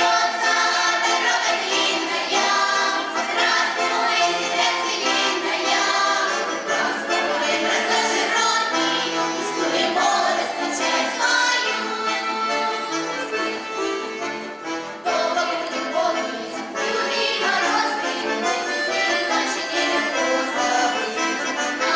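Children's folk ensemble singing a Russian folk song together over instrumental accompaniment.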